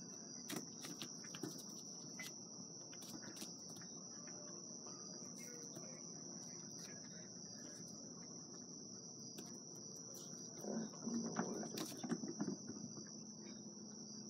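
Crickets trilling steadily in the background, with scattered light taps. A short stretch of louder scuffling and knocks comes about eleven seconds in.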